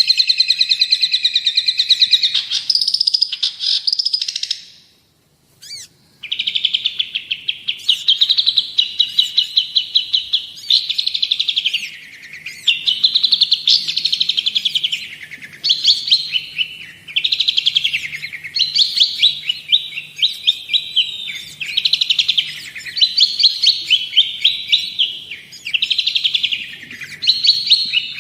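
Long-tailed shrike (cendet) singing a loud, fast chattering song of rapid repeated notes that sweep up and down. It breaks off briefly about five seconds in, then resumes.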